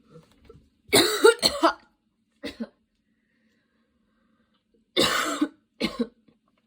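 A person coughing in two fits: a harsh cough of two or three quick hacks about a second in, with a shorter cough after it, then another fit of hacks near the end, again followed by a shorter cough.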